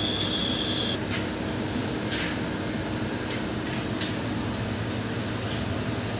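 Dogs licking and eating from metal bowls, with a few sharp clinks of tongue or teeth on the metal, over a steady fan-like hum and hiss. A high steady whine stops about a second in.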